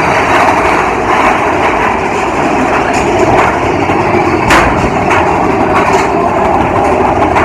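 Roller coaster train rattling along its track: a loud, steady rumble with several sharp clacks in the second half, the loudest about halfway through.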